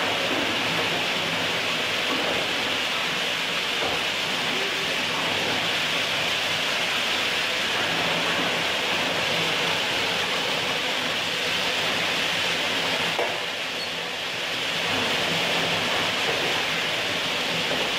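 Tile-press machinery running with a steady, hissing noise, easing off briefly about two thirds of the way through.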